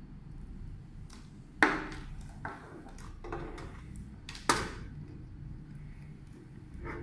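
Sharp plastic clicks and knocks from handling plugs and a power adapter, pushing them into a tower power strip; two loud clicks about a second and a half in and again near four and a half seconds, with fainter ones between.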